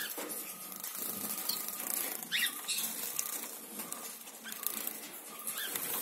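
Zebra finches bathing in a shallow water dish: rapid splashing and wing-fluttering in the water, in quick irregular spatters, with a few short high chirps from the birds mixed in.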